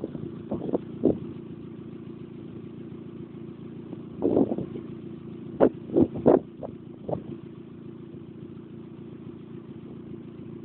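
Hyundai Getz 1.1-litre four-cylinder petrol engine running steadily at idle through a Simoni Racing aftermarket rear exhaust box, with the stock catalytic converter and resonator still in place. Several short, sharp bursts break through the steady idle note, clustered around the middle.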